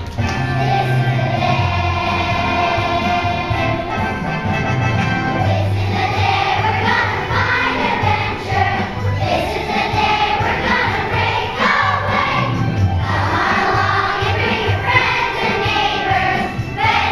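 A children's choir singing together over music with a bass line.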